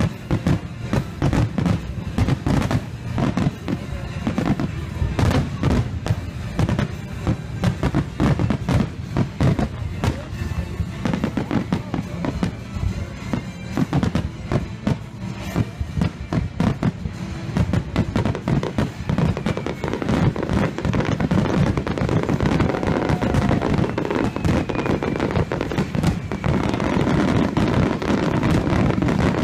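A fireworks display: aerial shells bursting in rapid, irregular succession with crackling. It grows denser and louder near the end, like a finale barrage. Music plays underneath.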